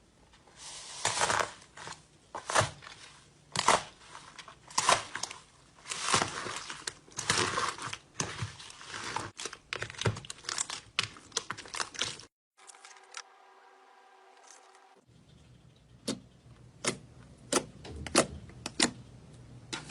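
Slime being squeezed and worked by hand: a run of wet crackles and sharp pops, several a second, as air pockets in the slime burst. About twelve seconds in it cuts off suddenly to a steady hum with several pitches for about two and a half seconds, then the crackles and pops start again.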